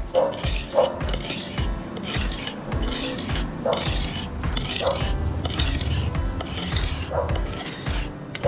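Knife blade drawn repeatedly through a homemade sharpener made of two paper clips: metal scraping on metal in short strokes, about two a second, sharpening the edge. Light background music runs underneath.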